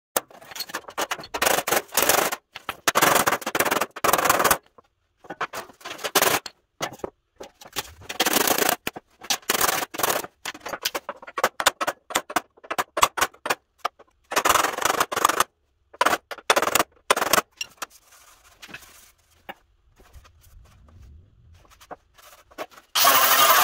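Sheet-metal work on a rusted steel pickup tailgate: several runs of rapid, sharp clattering, each a few seconds long, with short pauses between. Near the end a steady, loud noise starts up.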